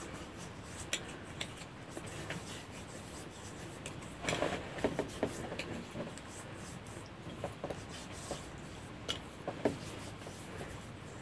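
Hands rubbing and patting skin on the face close to the microphone: faint soft rubbing with scattered light taps and rustles, a busier flurry about four seconds in.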